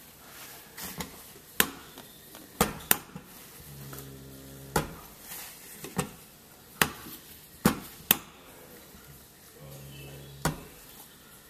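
Refrigeration oil hand pump being stroked, giving sharp clicks about once a second at an uneven pace as polyol ester oil goes into a hermetic compressor's sump. A short low hum comes in twice, once in the middle and once near the end.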